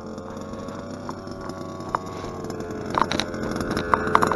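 Zenoah G320 32cc two-stroke engine of a fifth-scale RC monster truck, running at a steady pitch and growing louder near the end, with a few sharp clicks.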